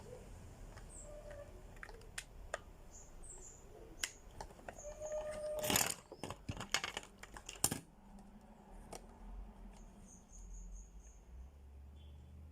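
Sharp plastic clicks and handling as crimped RJ45 plugs are pushed into the ports of a network cable tester, with a dense burst of clicking near the middle and one last loud click a couple of seconds later.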